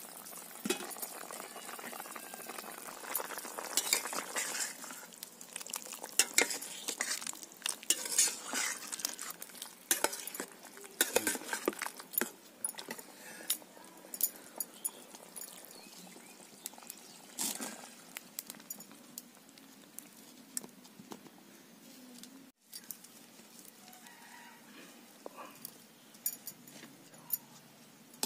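Long metal spatula stirring a simmering mutton curry in a metal kadai, scraping and clinking irregularly against the pan. The clinks are dense for the first half and sparser later.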